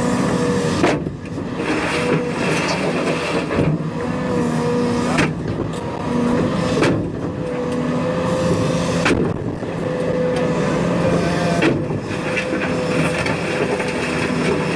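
Cat 335 Next Gen excavator at work, its engine and hydraulics giving a steady hum. Over the hum is a rushing noise that drops away briefly several times.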